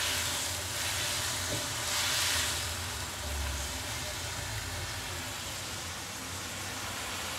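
Oyster mushrooms and green chillies sizzling in a wok as they are stir-fried in their sauce, stirred with a slotted spatula; the sizzle swells briefly about two seconds in.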